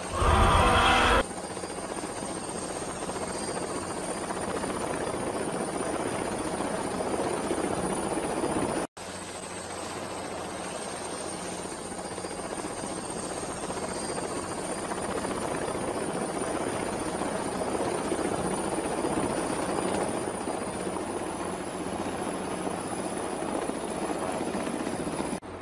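Helicopter running steadily, a dense rotor-and-engine noise with a thin high turbine whine that creeps slightly up in pitch. The noise cuts out for an instant about nine seconds in and resumes. A louder sound carries over from before in the first second.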